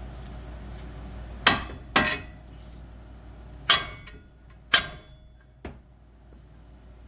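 Hammer blows on steel suspension parts: four sharp, ringing metal strikes and a lighter fifth, knocking at a stuck lower control arm to free it.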